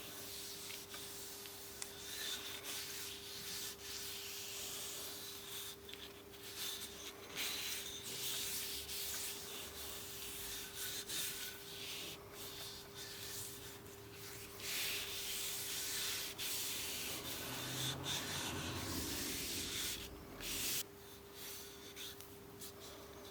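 Repeated hand-rubbing strokes on the hammer, scratchy and uneven, stopping about 21 seconds in, over a faint steady hum.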